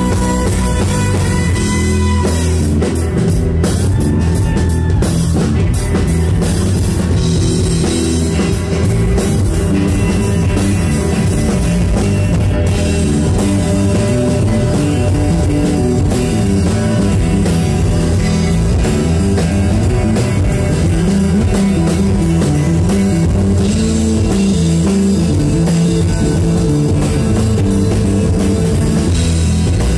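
Live rock band playing: a drum kit and electric guitar, loud and continuous.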